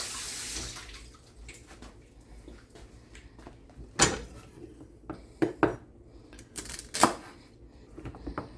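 Kitchen sink tap running, shut off about a second in, after rinsing celery stalks. Then a few separate knocks and clatters as things are set down on the counter and cutting board.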